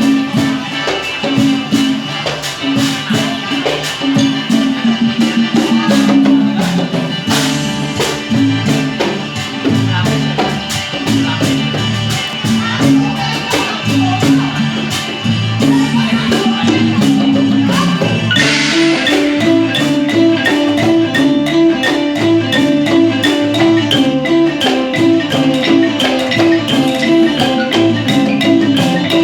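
Isan folk dance music: a pong lang wooden xylophone plays a quick, repeating melody over a steady beat of sharp percussion clicks.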